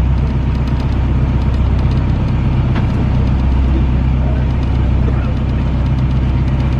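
Tour boat's engine running steadily with a low hum.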